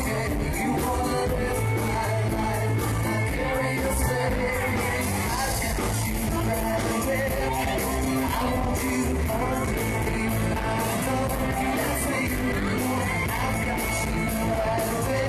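Live pop-rock band playing in a club, with a male singer singing into a handheld microphone over electric bass and guitar.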